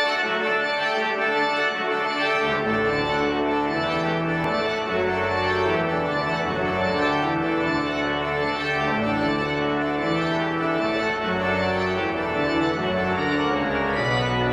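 Pipe organ playing full, sustained chords that change every second or so, with deep pedal bass notes coming in about two and a half seconds in.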